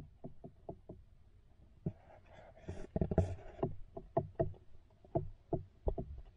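Irregular muffled knocks and clicks picked up underwater as a Staurotypus musk turtle noses and bumps against the action camera, with a denser, sharper flurry about two to three and a half seconds in.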